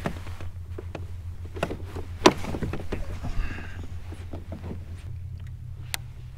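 Knocks and clicks of fishing gear being handled on a plastic kayak, with the sharpest knock a little over two seconds in and a run of small clicks after it, over a steady low rumble.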